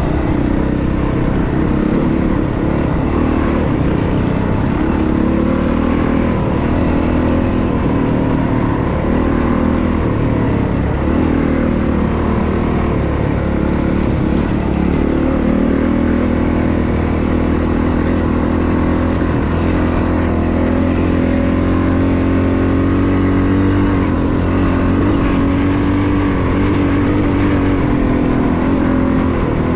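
Honda CRF450RX's 450 cc single-cylinder four-stroke engine running under light load at a steady trail cruise, its pitch wavering a little with the throttle.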